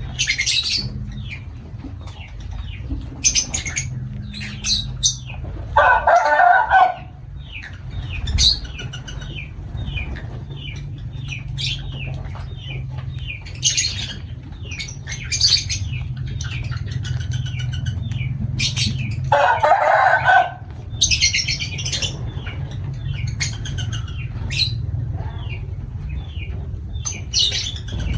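Lovebirds chattering in a stream of short, shrill chirps, with two louder, lower calls about six seconds in and again about twenty seconds in.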